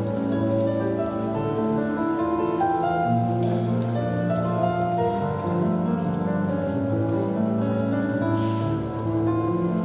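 Slow instrumental music of long, held chords, the instrumental introduction to a song, with no voice.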